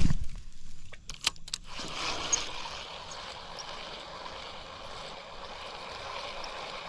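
A knock and a few sharp clicks, then from about two seconds in a steady rush of flowing stream water.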